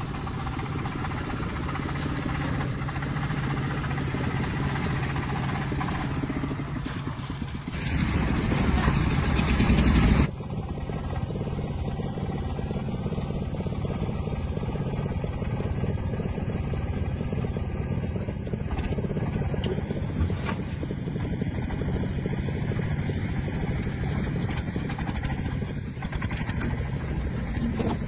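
An engine running steadily. It gets louder and rougher for about two seconds around a third of the way in, then changes abruptly to a steadier running sound.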